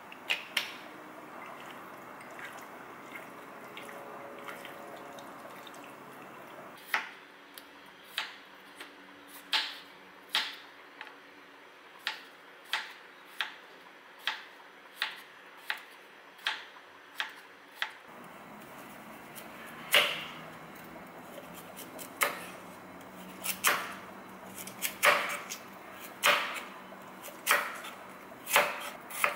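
Chef's knife cutting raw potato, then carrot, on a wooden chopping board: a series of separate sharp knocks as the blade goes through and strikes the board, roughly one or two a second. The knocks start about a quarter of the way in.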